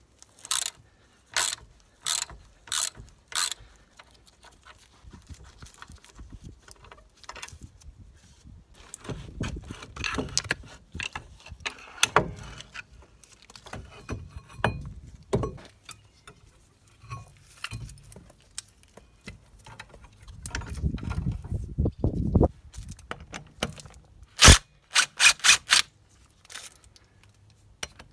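Socket ratchet clicking in short strokes as a brake caliper bolt is turned out. Then metal clunks and scraping as the rusty brake caliper is worked off the disc, and a quick run of sharp, loud clicks near the end.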